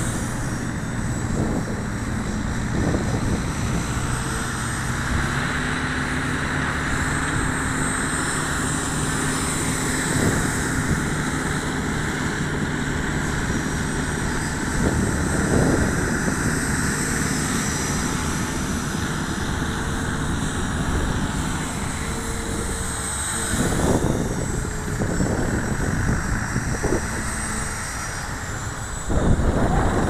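Electric Align T-Rex 450 Pro RC helicopter's motor and rotors whirring steadily in flight, with strong wind gusting on the microphone now and then.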